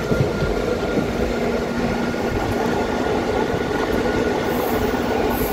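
Mumbai suburban local train (electric multiple unit) running slowly, a steady rumble of wheels on rails heard from the open doorway of the coach, with a faint steady whine.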